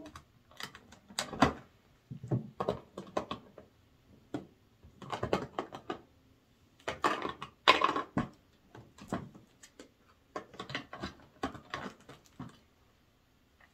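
Irregular bursts of sharp clicks and crackles from hard clear plastic packaging and figure parts being handled, as placeholder bunny-ear pieces are worked out of a figure's blister tray. The bursts come in clusters with short pauses between them.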